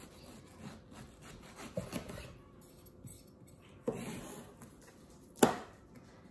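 Chef's knife slicing a cheek off a mango alongside the seed: soft scraping, rubbing strokes of the blade through the fruit, then one sharp knock on the plastic cutting board near the end.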